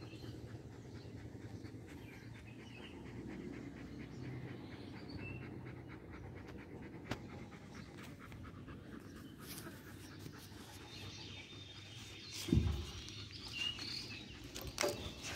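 Saint Bernard dog panting steadily with its tongue out, a quick even rhythm of breaths. A short low thump about twelve seconds in.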